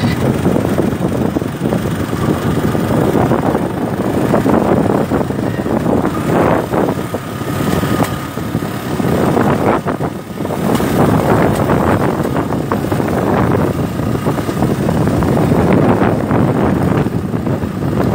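Small motorcycle riding along a dirt road: the engine runs steadily under heavy, gusting wind noise on the microphone.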